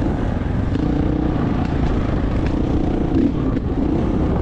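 A vehicle engine running steadily under way, its pitch wavering a little, over a constant low rumble of road and wind noise.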